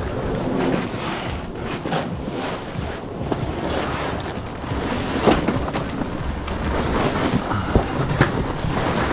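Wind rumbling and rushing on the microphone, with scattered short knocks and clicks.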